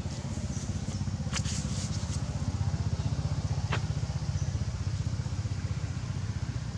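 Low, steady rumble of an idling small engine with a fast, even pulse. A few brief, faint high-pitched squeaks come over it in the first four seconds.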